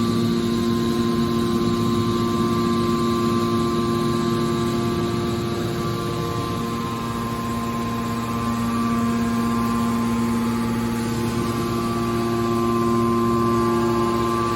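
Hydraulic scrap metal baler's pump and motor running with a steady hum made of several held tones, easing slightly about halfway through before building again.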